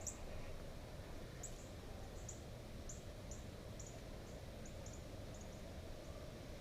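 A run of short, very high-pitched chirps, roughly two a second, over a faint steady low rumble of background noise.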